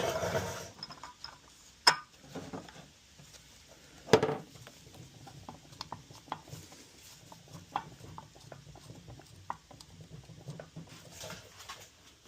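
Metal supercharger parts handled on a workbench while a new isolator is fitted into the snout: a rustle, then two sharp clinks about two and four seconds in, followed by scattered lighter clicks.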